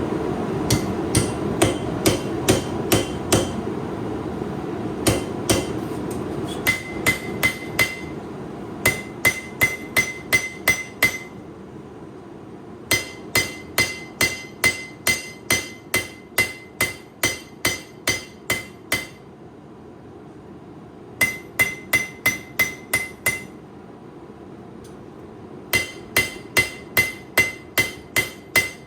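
Hand hammer striking a hot steel knife blade on an anvil, forging a deeper finger well into it: runs of several ringing blows a second, broken by short pauses. A steady rushing noise underneath fades away during the first half.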